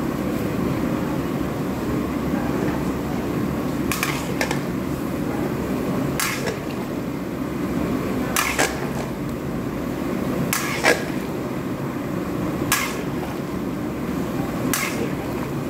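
A spatula scraping and knocking against a large metal pan as a pot of paella broth is stirred, one short sharp scrape about every two seconds over a steady low rushing noise.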